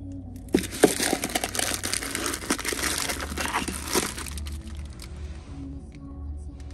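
Dense crinkling and crackling close to the microphone, starting about half a second in and stopping about four seconds in, over a low steady hum.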